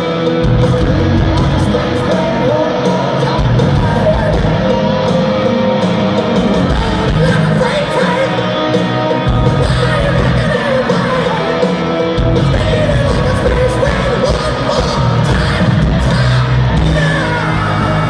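Hard rock band playing live through a stadium PA, with electric guitars, bass and drums under a lead singer, heard loud from within the crowd. Fans yell and whoop over the music.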